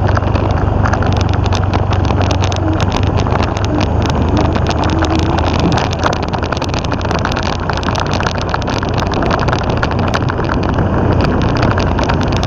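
Motorcycle engine and final-drive gearbox running with a steady low hum and a rough mechanical noise from the final drive, a sign of gear oil that has long gone unchanged.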